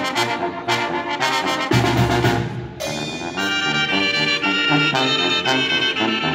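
Brass band music with trumpets and trombones over a regular drum beat. It switches abruptly to a different passage nearly three seconds in.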